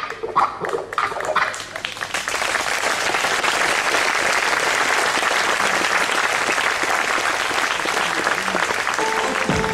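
Audience applauding: the clapping swells over the first couple of seconds and then holds steady. Music starts up again near the end.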